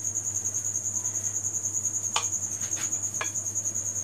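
Crickets chirping: a steady, rapidly pulsing high trill, with two faint clicks about two and three seconds in.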